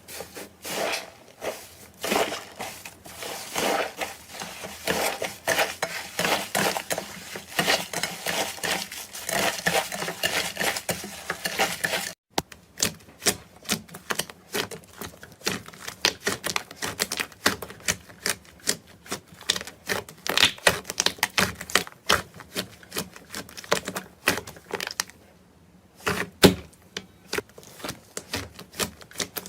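Slime being squeezed and pressed by hand, giving rapid clicking and crackling pops. The sound cuts out for an instant about twelve seconds in and thins out briefly near the end.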